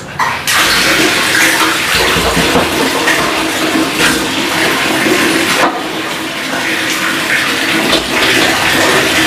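Kitchen tap turned on and running hard into a plastic basin in the sink, starting abruptly about a third of a second in.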